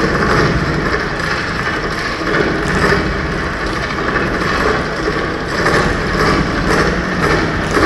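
Loud stage-show music over an arena's sound system, overloaded on the recording into a dense rumbling roar with no clear tune.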